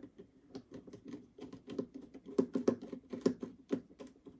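Irregular clicks and taps of hard plastic feeder parts being handled as a nut goes into its nut trap and a screwdriver is set to a screw in the plastic mounting platform.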